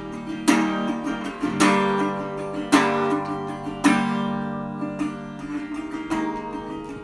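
Acoustic guitar strumming chords in an instrumental break of a song, with a strong strum about once a second left to ring, the strokes lighter over the last few seconds.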